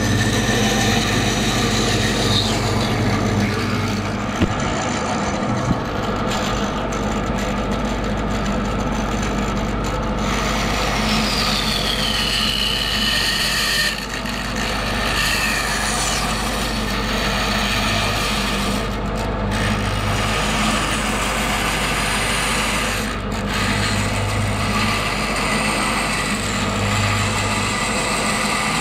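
Bandsaw running steadily while its blade cuts a curve through a wooden board, working through relief cuts already sawn into the waste side.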